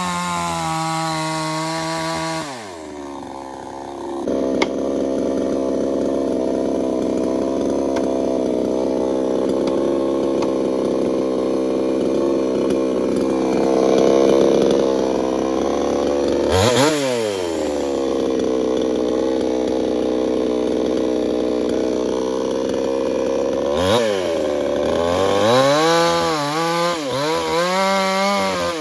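Chainsaw cutting into a tree, the engine held steady under load. The throttle drops off and picks back up a few times, and near the end the engine revs up and down repeatedly.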